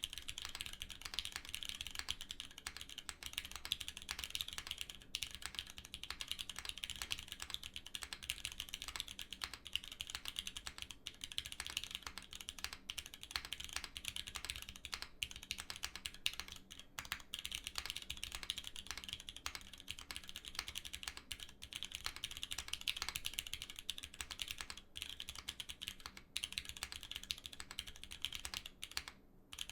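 Continuous fast typing on a GSK 910 aluminium 65% mechanical keyboard fitted with Cherry MX Black linear switches on a carbon-fibre plate, with a sharp, clacky sound. The typing pauses briefly near the end.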